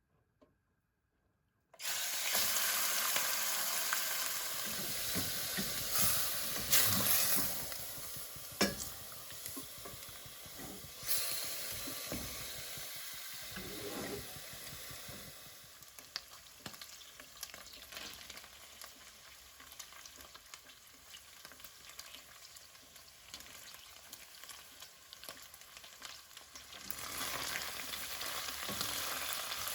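Food frying in hot oil in a pan, a steady sizzle that starts suddenly about two seconds in and is stirred, with a few sharp knocks. The sizzle eases through the middle and grows louder again near the end.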